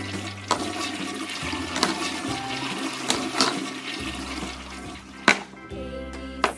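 A toilet flushing with steady rushing water, as the toy figures go down into the toy toilets. Several sharp plastic clicks sound over it.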